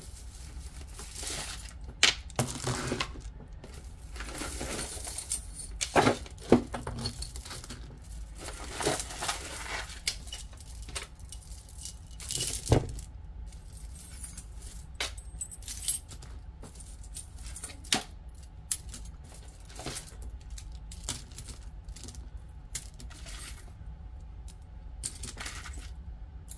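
Jewelry pieces, metal chains, bracelets and beads, clinking and rattling as they are rummaged through by hand, in irregular small clicks with a few louder knocks.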